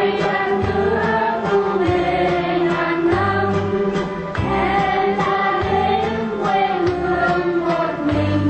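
A group of voices singing a Vietnamese song together over instrumental accompaniment with a bass line underneath.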